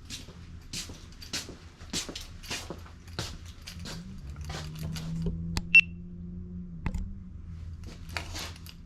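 Light clicks and rustles of small tools or parts being handled, with a low hum for a few seconds in the middle and a single short high ping.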